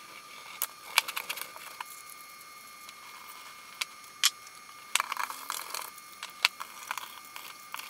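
Motor parts being washed in a solvent parts-washer sink: scattered knocks and clicks of metal parts against the basin, with splashing and sloshing of the solvent and a faint steady hum underneath.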